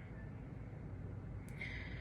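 A person breathing in sharply just before speaking, after a small mouth click about one and a half seconds in, over a steady low room hum.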